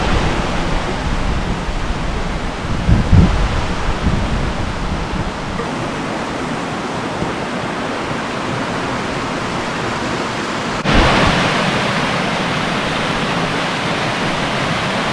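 Waterfall's steady rush of falling water. About eleven seconds in it switches abruptly to a louder, brighter rush.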